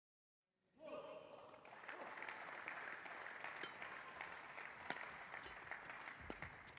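Badminton rally in a sports hall: sharp cracks of rackets striking the shuttlecock, about five over the last few seconds, over steady crowd noise and applause that starts suddenly about a second in and fades toward the end.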